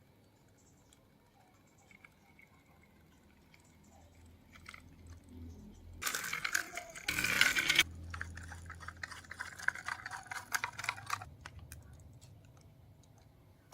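Loose shelled corn kernels pouring and rattling: a loud rush about six seconds in lasting about two seconds, then scattered crackling patter that thins out, over a faint low engine hum.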